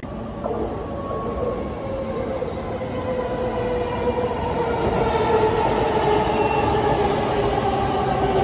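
JR East E233-series Chuo Line electric train pulling into the station and braking. Its traction-motor whine falls slowly in pitch and grows louder as the cars draw alongside.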